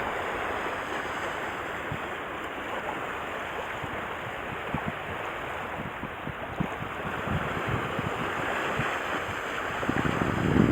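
Steady rush of wind and water, with wind buffeting the microphone in low thumps that grow heavier near the end.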